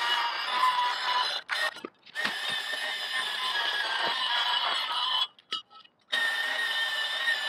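Power saw cutting steel pipe into short sections, a steady whining cut that stops abruptly twice.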